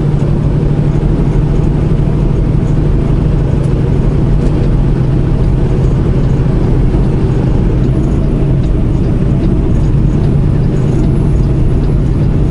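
Semi-truck diesel engine and road noise heard steadily from inside the cab while cruising on the highway.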